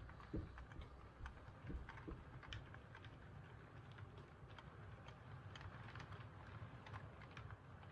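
Faint running of an HO-scale Rivarossi 4-6-4 Hudson model steam locomotive and its passenger cars rolling slowly: a low rumble with light, irregular clicking. The clicking comes from the locomotive's eccentric, which the owner cannot stop and calls common with these engines.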